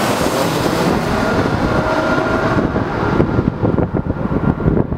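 Airbus A320 airliner's jet engines passing low overhead on landing approach, the noise holding a faint falling whine at first. From about two and a half seconds in the hiss fades as the aircraft moves away, and wind buffets the microphone.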